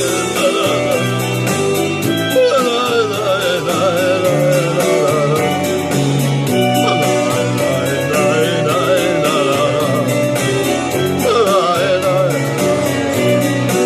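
Instrumental introduction of a pop song: a steady drum beat over bass and keyboard chords, with a wavering lead melody entering a couple of seconds in.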